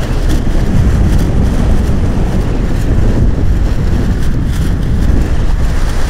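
Gale-force wind of about 40 knots buffeting the microphone: a loud, steady low rumble.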